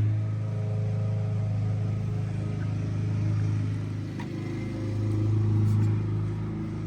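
A steady low mechanical hum, holding one pitch and swelling slightly about five seconds in.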